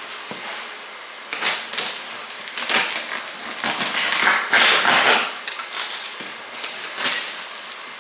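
Packaging rustling and crinkling in irregular handfuls as a boxed Christmas tree is unpacked, loudest about halfway through.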